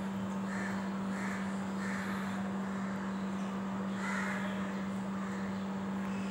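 Crows cawing in two short runs of about three caws each, over a steady low hum.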